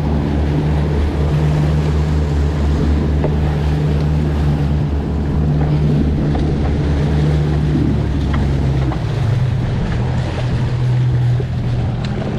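Twin 115 hp outboard motors running steadily under way, with water rushing in the wake and wind on the microphone. The engine note changes about nine seconds in.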